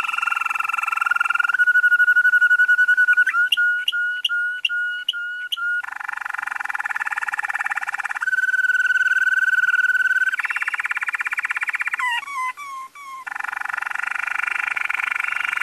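Male canary singing a long unbroken song: fast rolling trills alternating with steady held whistle notes, a run of evenly spaced pulsed notes a few seconds in, and a burst of quick falling glides near the end.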